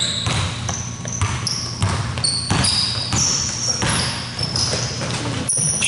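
Basketball sneakers squeaking on a hardwood gym floor, many short high squeaks, among the thuds of a basketball being dribbled and players' running footfalls.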